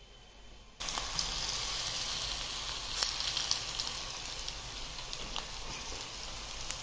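Punugulu (idli-batter fritters) deep-frying in hot oil in a steel pan: a steady sizzle with scattered pops, starting suddenly about a second in.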